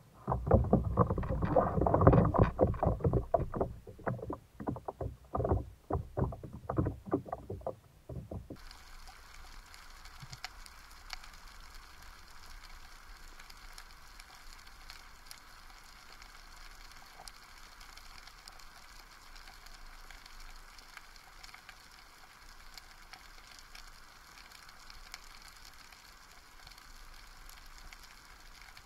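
Water splashing and knocking against a Galaxy Kayaks Alboran FX sit-on-top kayak as a spearfisher in long fins slides off it into the sea. About eight seconds in this stops abruptly, giving way to a faint, steady underwater hiss.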